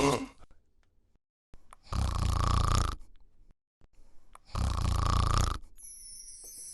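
A person snoring: two loud, rasping snores about a second long each, roughly two and a half seconds apart.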